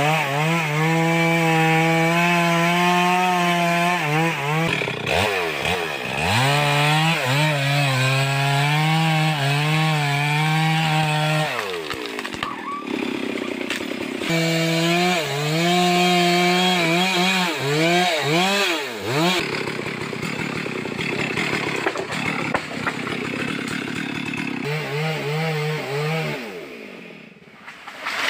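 Two-stroke chainsaw held at full throttle, cutting into wood, with its engine note falling back and rising again between cuts several times.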